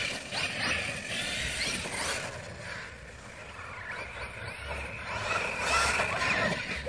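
Arrma Kraton 6S V4 RC monster truck running at a distance on loose dirt: a thin brushless-motor whine that rises and falls with the throttle over a hiss of tyres and grit, growing louder in the second half.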